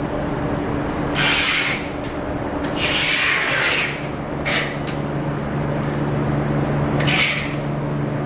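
PE plastic film rustling as it is smoothed over stacked foam boards, and packing tape being pulled off a roll, in several short rasping bursts over a steady low hum.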